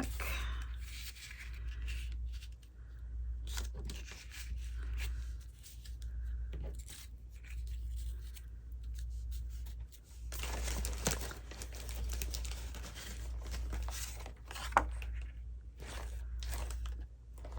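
Sheets of cardstock rustling and sliding against each other as they are leafed through and handled, with a sharp tap about fifteen seconds in.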